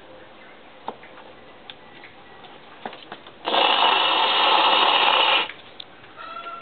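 A goat bleating once, a loud, harsh call about two seconds long midway through, with a few light clicks before it.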